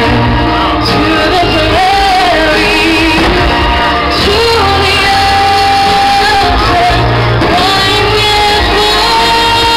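Music: a song with a singer's wavering melody over a band with a steady low bass.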